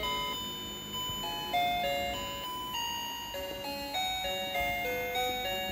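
Background music: a slow, simple melody of single chime-like notes, each one struck and then fading.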